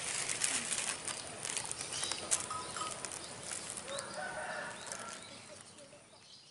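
Outdoor ambience with scattered short bird calls over light clicking and rustling, fading out near the end.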